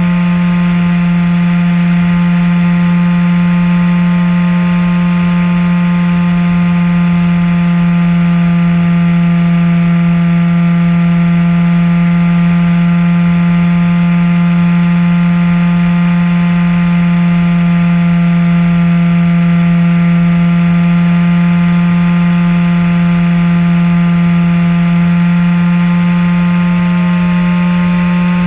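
Maxi-Swift RC flying wing's motor and propeller running at a steady speed as heard from the onboard camera: a constant buzzing drone with a hiss of rushing air, a couple of its overtones drifting slightly in pitch near the start and near the end.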